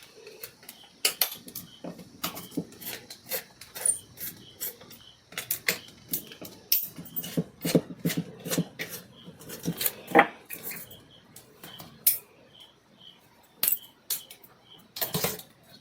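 Irregular small clicks and taps of wires and terminal screws being handled and fitted on a plastic switch board while an indicator lamp is being connected.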